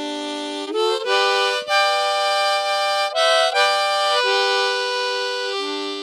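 Hohner Special 20 diatonic harmonica in the key of G, with a plastic comb, played in a short run of chords. The chords change every second or so.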